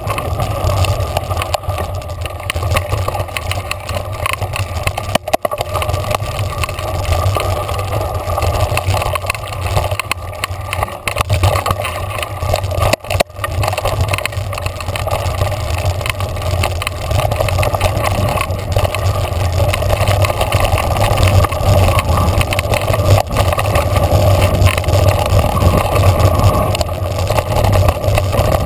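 Mountain bike riding over a dirt trail, heard from a camera mounted on the bike: a continuous rumble of tyres on dirt with the rattle of the bike shaking over bumps, dipping briefly twice.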